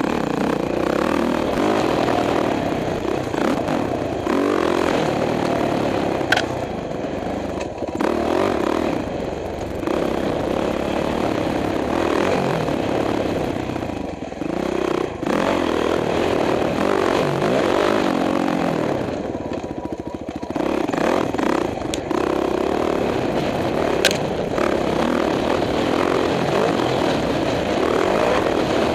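Dirt bike engine running under load, its pitch rising and falling again and again as the throttle is opened and closed on a rough trail. Clatter from the bike runs underneath, with a few sharp knocks.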